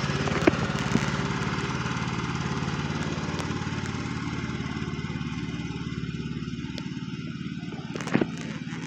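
Husqvarna riding lawn mower engine running steadily, growing gradually fainter. A short sharp sound cuts in about eight seconds in.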